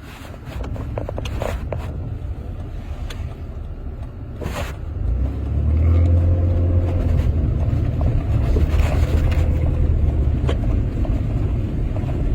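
Truck engine and drivetrain heard from inside the cab, rumbling along at low speed; about five seconds in the engine note grows louder and holds steady as the truck pulls ahead. A single brief knock just before that.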